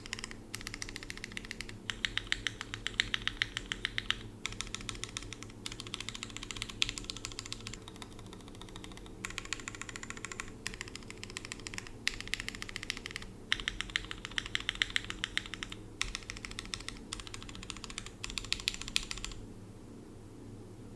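Fast typing on a DM mechanical keyboard with lubed and filmed Cherry MX Red linear switches in a friction-mounted aluminium plate, in bursts of rapid keystrokes with short pauses. It is modded DCX keycaps first; after a brief lull about nine seconds in, it is modded GMK keycaps. The typing stops a little before the end.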